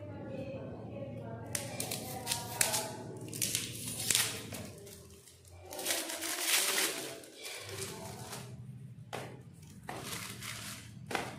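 A knife cutting and scraping at the paper and plastic wrapping on the ends of cardboard firework tubes, while the tubes are handled in a cardboard box. It makes a string of short, irregular crinkling, rustling and scraping noises.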